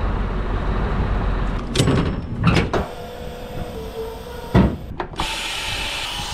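A few sharp knocks and clunks against a steel trailer, then, just after five seconds in, a steady rush of air as the WABCO raise/lower valve on a low-loader trailer's air suspension is turned.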